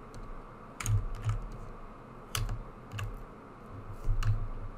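Computer keyboard keystrokes: scattered, irregular clicks in small clusters, each with a dull thud beneath it, as modelling shortcuts are pressed.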